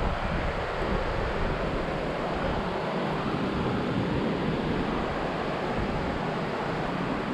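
Steady rushing noise with an uneven low rumble underneath, and no distinct events.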